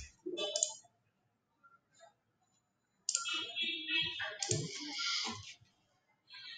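A computer mouse clicks a few times on web-page controls. About three seconds in, a faint, unclear stretch of sound runs for a couple of seconds.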